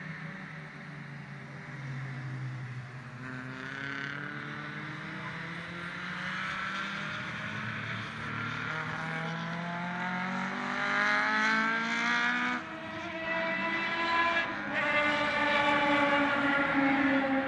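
Race car engines accelerating on a circuit, the engine note rising in pitch as they pull through the gears. The note breaks off briefly twice in the second half, at gear changes, and is loudest near the end as cars come close.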